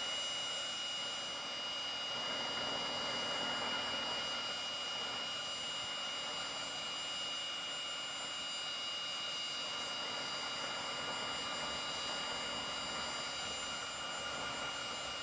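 Battery-powered heat gun blowing steadily, a flat airy hiss with a thin high whine, while heat-shrink wire connectors are shrunk.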